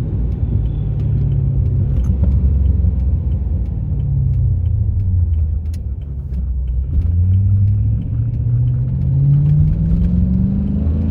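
A 2007 Chrysler 300C's 5.7-litre Hemi V8, heard from inside the cabin while accelerating in manual mode. The engine note climbs, eases off with a dip about six seconds in, then climbs again. Faint ticks run over it: the tick or rattle the owner is chasing, which his tags put down to the Hemi's lifters or rocker arms.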